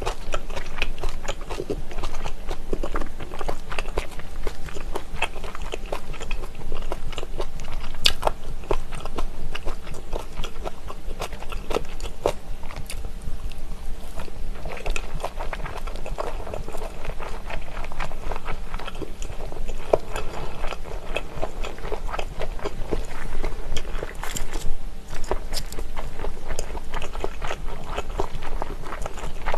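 Close-miked chewing of slices of spicy pressed chicken-feet terrine (dakbal pyeonyuk), a steady stream of small mouth clicks and bites.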